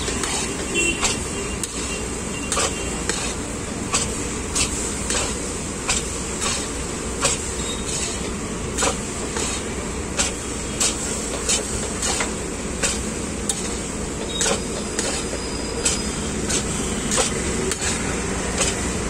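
Long metal spatula clanking and scraping against a large iron kadhai as poha is stirred and tossed, a regular clank a little under twice a second over a steady background noise.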